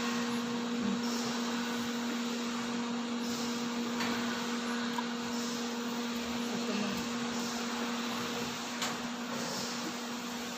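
Steady machine hum with one constant low tone and an even hiss, with a single sharp click about nine seconds in.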